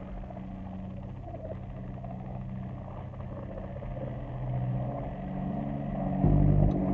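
Droning sound-design score: several steady deep hum tones over a low rumble, slowly growing louder, with a sudden louder low surge about six seconds in.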